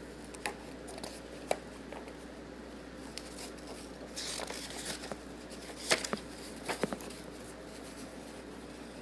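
Picture-book pages being handled and turned: a faint paper rustle about four seconds in, with scattered light clicks and taps.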